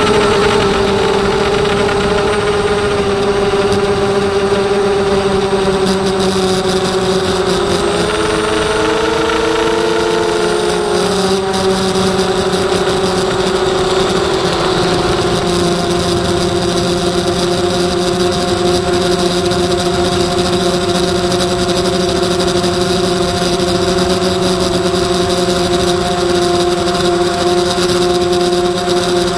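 Emax Nighthawk 250 racing quadcopter's brushless motors and propellers whining steadily, heard from on board. About eight seconds in the pitch splits into two wavering tones for a few seconds as the motors run at different speeds, then settles again slightly lower.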